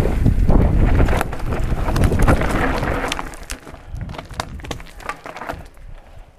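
Wind buffeting the camera microphone and mountain-bike tyres rumbling over a rough dirt trail at speed. After about three seconds it drops to a quieter crunch of tyres on loose gravel, with many scattered clicks of stones.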